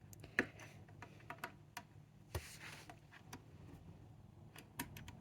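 Faint, scattered clicks and taps of a plastic cable connector being handled and pushed into its socket on a 3D printer, with a brief rustle about two and a half seconds in.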